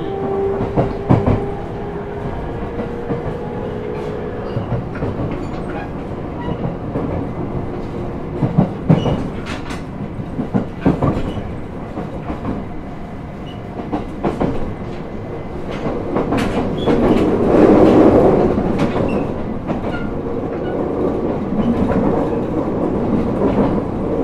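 Running noise of a JR East E127-series 0 electric train (Toyo GTO-VVVF), picked up near the floor of its motor car: a steady rumble with sharp wheel clacks over rail joints. A faint steady whine fades out in the first few seconds, and the rumble swells louder about two-thirds of the way through.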